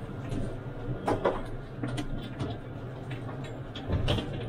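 Standing CDGVAL automated airport shuttle train: a steady low hum from the train, with a few sharp clicks and knocks. The strongest come about a second in and about four seconds in, the second with a low thump.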